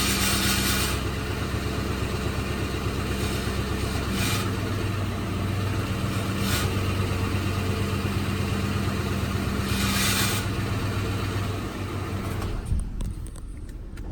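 Car engine running steadily, with a rattle coming and going in four short bursts. The engine sound drops away near the end.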